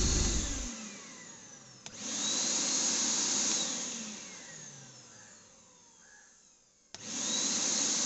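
JPT KVC60 double-motor commercial wet/dry vacuum cleaner's motors being switched on and off at the rocker switches. A motor winds down with a falling whine, then clicks on about two seconds in, spins up with a rising whine, runs briefly and winds down again. About seven seconds in, another click starts a motor spinning up again.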